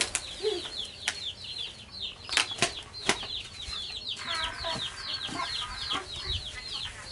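Chicks peeping rapidly and continuously, each peep a short falling chirp, several a second. A few sharp knocks fall in the first three seconds, and a steady tone is held for about two seconds midway.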